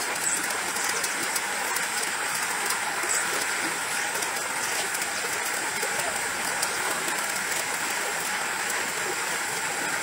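Steady forest ambience: an even hiss with a thin, high steady tone above it and a few faint ticks.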